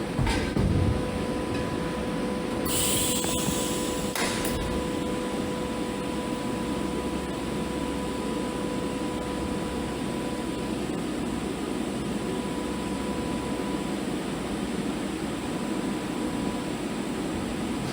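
Steady hiss and hum of a TIG welding arc, with a steady whine, and a brief sharper hiss about three to four and a half seconds in.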